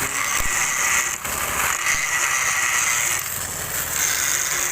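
Angle grinder running steadily against steel during repair of a backhoe loader's bucket ram, a hard high-pitched grinding noise that eases slightly about three seconds in.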